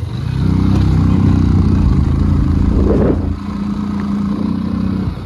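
A vehicle engine running loud under load on a rough road. A short clatter comes about three seconds in, after which the engine runs on at a changed pitch and drops away near the end.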